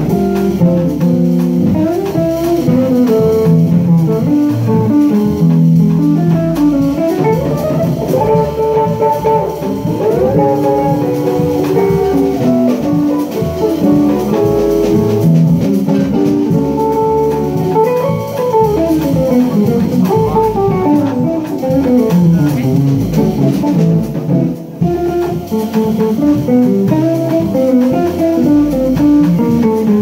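Live jazz trio: an electric guitar solos in quick runs that climb and fall, over upright bass and drums.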